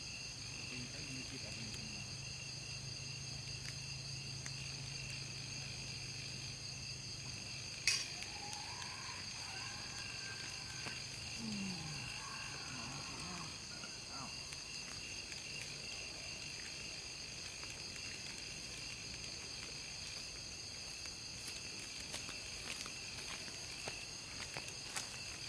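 A steady, high-pitched chorus of night insects singing in several even bands, with one sharp click about eight seconds in and a few faint ticks near the end.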